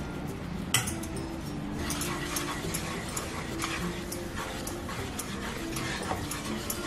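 Flat spatula stirring and scraping roasted ragi flour into hot jaggery syrup in a nonstick pan: a steady run of short scrapes and taps, with faint brief tones between them.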